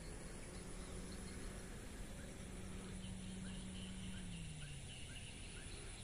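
Open-air ambience of birds calling, a short chirp repeated about twice a second, over a low steady hum that drops in pitch a little after four seconds in.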